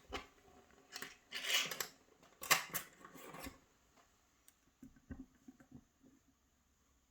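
Small metal lockpicking tools clinking and scraping against a pin-tumbler lock cylinder as they are set in place: a few short scrapes in the first few seconds, then only faint ticks.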